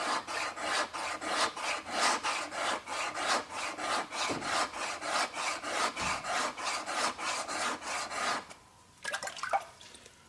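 A plane iron's primary bevel being honed by hand on a diamond sharpening plate: quick, even back-and-forth strokes of steel rubbing on the plate, about three or four a second. The strokes stop about eight and a half seconds in, followed by a couple of short handling noises.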